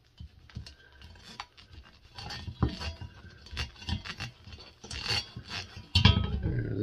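Gloved fingers turning screws by hand to fasten a metal ceiling fan mounting plate, with irregular rubbing, scraping and small metallic clicks. A heavier bump of handling about six seconds in.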